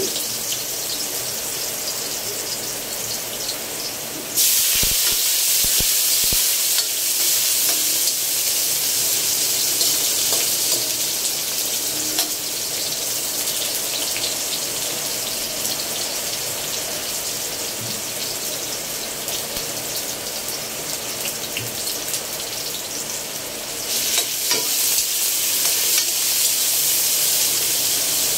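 Ginger frying in hot oil in a stainless-steel wok, sizzling steadily. About four seconds in, the sizzle jumps louder with a few knocks as chopped red onion goes into the oil, and it swells again near the end.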